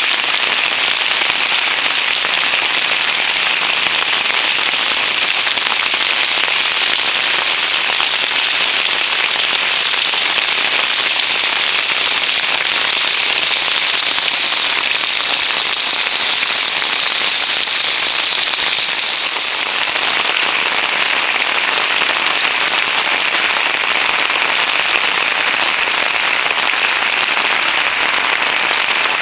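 Heavy monsoon rain falling steadily onto a flooded street, a dense even hiss that eases slightly about two-thirds of the way through.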